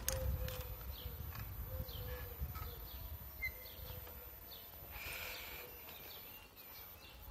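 Small birds chirping repeatedly, short high falling calls, over the low rumble of a mobility scooter running along a tiled pavement.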